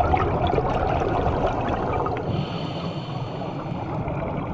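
Underwater ambience: a steady, even rushing wash of water noise with a faint gurgle. About halfway through, faint thin high tones join it.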